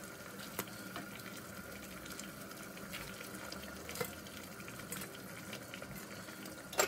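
Fish curry gravy boiling in a kadai, a steady bubbling, with a few small knocks as fried fish pieces are put into it.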